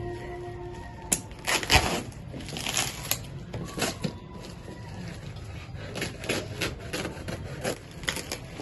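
Packaging being rustled and torn open by hand while a box is unpacked, with irregular crackles and knocks throughout.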